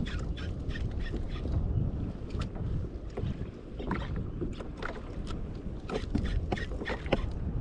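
Water sloshing and splashing against a fishing kayak, with wind rumble on the microphone and scattered small knocks and splashes.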